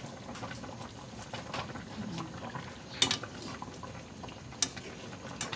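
A pot of fish in coconut milk bubbling at a simmer while a metal ladle stirs it, with two sharp clicks about three and four and a half seconds in.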